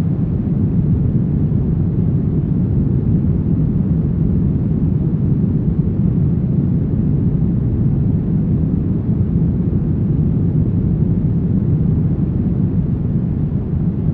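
Brown noise: a steady, deep, even rumbling hiss with most of its energy in the low end and little treble, unchanging throughout.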